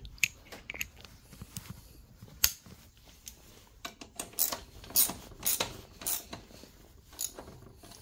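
Ratchet wrench clicking in short, uneven strokes while tightening the rear axle bearing carrier bolts on a chain-driven electric kids' ATV.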